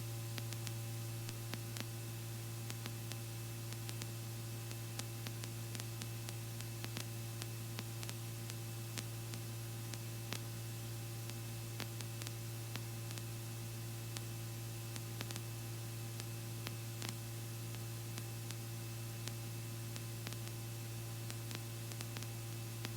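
Steady low electrical-sounding hum with an even hiss and scattered faint clicks, the idle noise floor of a helicopter intercom and radio audio feed while nobody is transmitting or talking.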